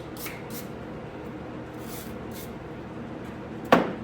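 Short scraping swishes of a spreader working body filler over a steel door skin, then a single sharp knock near the end.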